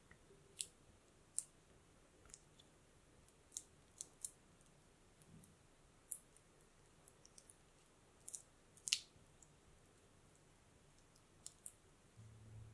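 Red silicone spatula working softened butter in a glass mixing bowl: irregular, sharp little clicks and taps as the spatula meets the glass and the butter, about fifteen in all, the loudest about nine seconds in.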